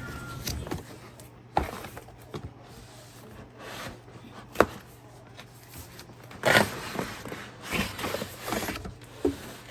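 Unpacking and handling sounds: a few sharp clicks and knocks, then short bursts of rustling or scraping as items are moved and set down.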